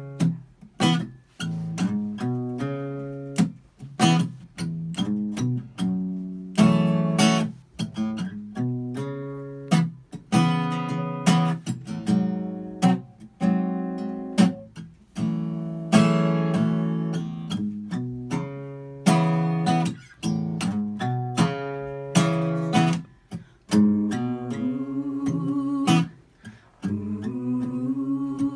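Acoustic guitar strummed in chords, live and unamplified. Voices come in singing near the end.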